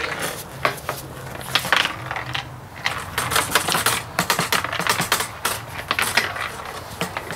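Loose metal washers rattling and clicking inside an emptied fuel tank as it is shaken and tipped to work them out, in quick irregular clusters.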